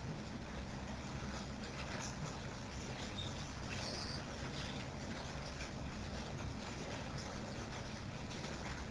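Steady background hum and hiss of a quiet video-call line, with a few faint short high sounds about two and four seconds in.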